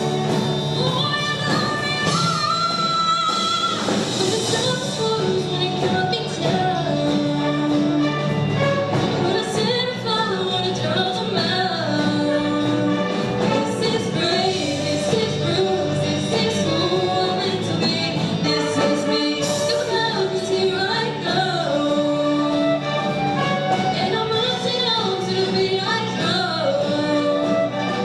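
Live concert music: a singer carrying a melody over steady band accompaniment, playing without a break.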